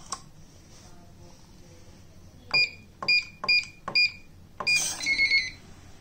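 Epic ES-B10 digital door lock: a click as its keypad cover is slid open, then the keypad beeps four times, about half a second apart, as the code is keyed in. A fifth beep and a short warbling chime follow near the end, the lock accepting the code.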